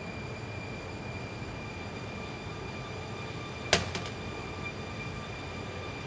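A steady low rumbling ambient drone with a faint high whine over it, broken by a sharp click a little past halfway, followed by a fainter second click.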